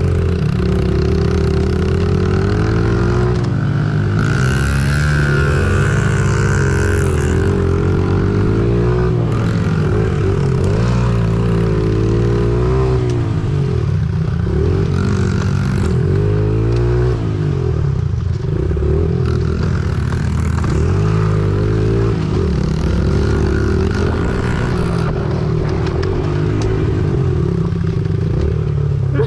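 Small four-stroke single-cylinder Honda minibike engine being ridden hard on a dirt track, its pitch rising and falling again and again as the throttle is opened and closed through the turns. There are short bursts of hiss about four and fifteen seconds in.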